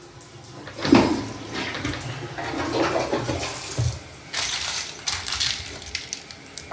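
Water running from a bathroom fixture to show the water pressure, with a knock about a second in and some clattering; the hiss gets brighter in the second half.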